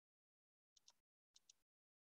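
Near silence, broken by two faint, short double clicks, one about a second in and one near the end.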